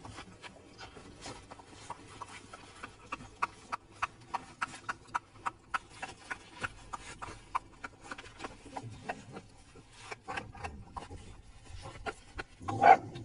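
Two Shiba Inu dogs scuffling, with a run of light clicks, several a second, for much of the time. Near the end one dog gives a short, loud cry.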